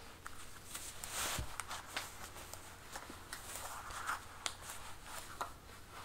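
Handling noise from a metal plaque belt being slid down and adjusted around the hips: scattered light clicks of the plaques and hinge, with soft rubbing against cloth.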